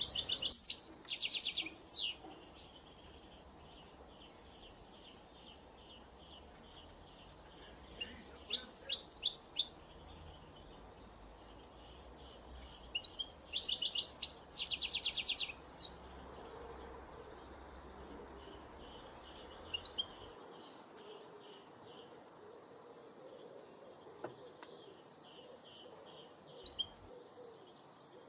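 Songbirds singing: a loud, bright song phrase of quickly repeated high notes comes about five times, and between the phrases a second bird keeps up a softer, steady run of high repeated notes.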